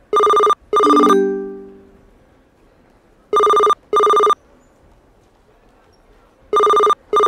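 Telephone ringing in a double-ring pattern: three pairs of short rings about three seconds apart. After the first pair a low tone sounds and fades away over about a second.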